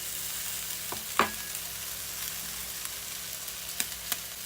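Chicken feet, garlic and onions sizzling steadily in hot oil in a pan, with one sharp knock about a second in and two lighter clicks near the end.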